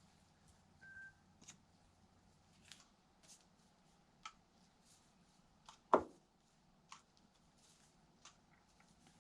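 Quiet handling sounds at a workbench as carbon fibre is worked with resin: scattered light clicks and taps, with one sharper knock about six seconds in.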